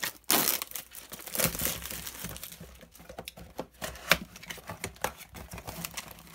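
Clear plastic shrink wrap crinkling and tearing as it is stripped off a small cardboard trading-card box, followed by the box's cardboard flaps being pulled open, with irregular crackles and taps.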